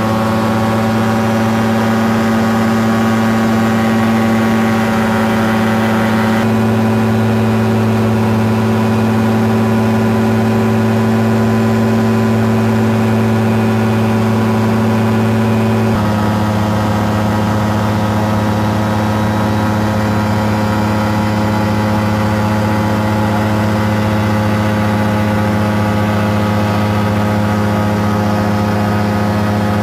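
Caprice 21 ultralight's engine and propeller running steadily in cruise flight, heard from inside the cockpit. The engine note shifts slightly lower about halfway through.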